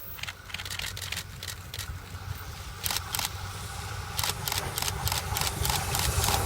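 C57 180 steam train approaching: a low rumble that grows louder, with sharp irregular clicks every few tenths of a second.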